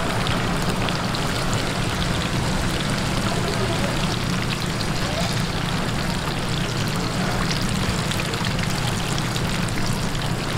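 Vegetable fritters deep-frying in a pan of hot oil: a steady sizzle with fine crackling, and a steady low hum underneath.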